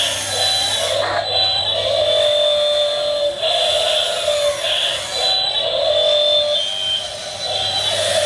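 1/16-scale RC excavator's motors whining, with two held high tones whose pitch bends down and back up again and again as it works.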